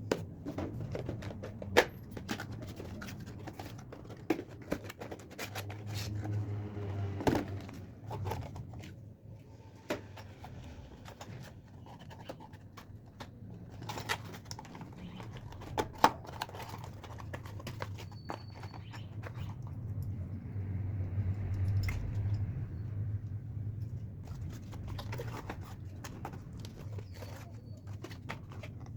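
Handling noise from hardware and packaging: sharp clicks and taps with some scraping and rustling, over a low steady hum.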